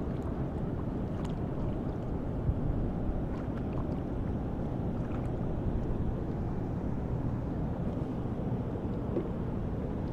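Steady low rush of turbulent river water churning below a dam, mixed with wind on the microphone, with a few faint ticks.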